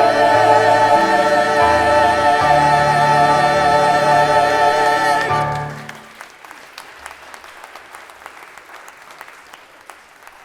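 A choir of amateur singers holds the final note of the song with vibrato over a changing low accompaniment, and cuts off about six seconds in. Audience applause follows.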